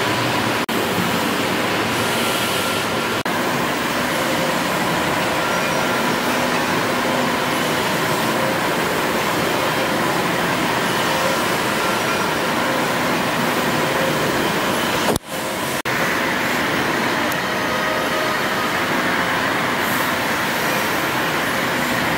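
Stationary steam engines running in an engine hall: a steady, dense mechanical noise with no clear beat, broken briefly about fifteen seconds in.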